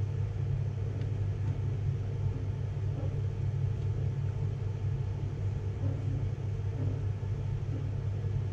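Steady low hum of a handheld 3D pen's small feed motor driving plastic filament through the heated nozzle, holding an even pitch.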